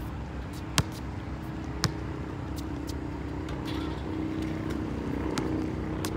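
A basketball bouncing on a concrete court: two sharp bounces about a second apart near the start, then fainter knocks. Under it runs a steady low hum that grows slightly louder toward the end.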